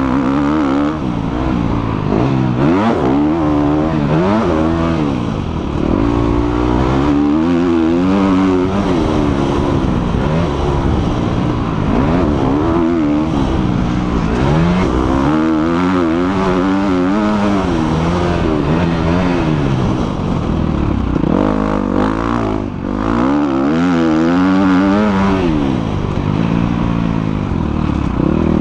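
Husqvarna 250 four-stroke motocross bike engine revving up and down repeatedly as it is ridden, heard from the rider's helmet camera.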